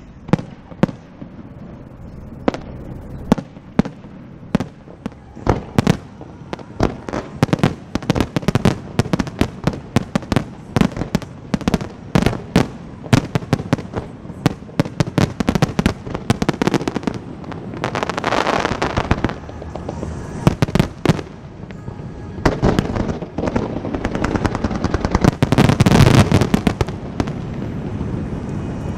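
Fireworks finale barrage: aerial shells bursting in quick succession, several bangs a second. About eighteen seconds in and again near the end, the bangs merge into a dense continuous crackle, loudest near the end.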